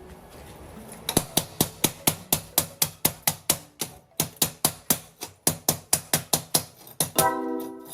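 Background music with a steady percussive beat of about four clicks a second, with a sustained chord coming in near the end.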